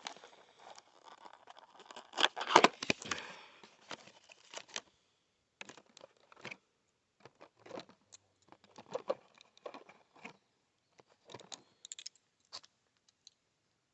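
Buckshot shotgun shells being worked out of their cardboard box: rustling and crinkling with a cluster of louder clicks two to three seconds in, then scattered separate clicks and knocks as the shells are handled.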